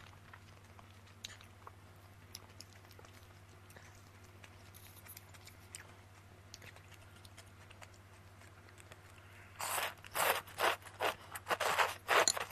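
Soft chewing and small mouth clicks, then near the end a quick run of loud slurps as a mouthful of wide oil-splashed noodles is sucked in.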